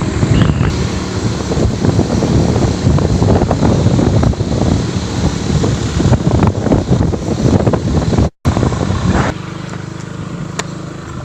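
Wind buffeting the microphone over the running engine of a moving vehicle. After a brief cut about eight seconds in, there is a quieter, steady engine hum.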